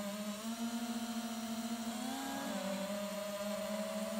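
FPV mini quadcopter's motors and propellers running with a steady whine. The pitch rises briefly about two seconds in, then settles a little lower as the throttle changes.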